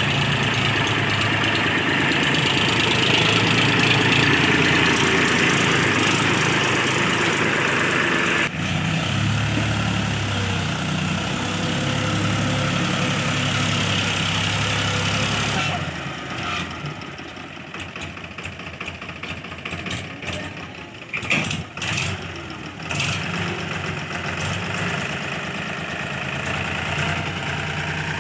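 Diesel engine of heavy machinery (backhoe loader or tractor) running steadily. About halfway through the sound drops to a quieter engine with a few sharp knocks.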